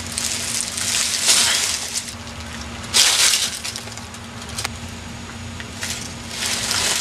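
Dry fallen leaves crunching and rustling as a person moves on them, in a few short bursts, over a faint steady hum.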